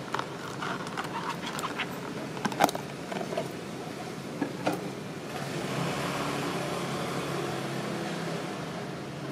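Handling noise as an aluminium watch case is slid out of a cardboard box: a run of small clicks and knocks over the first few seconds, the sharpest about two and a half seconds in, over a steady background hum.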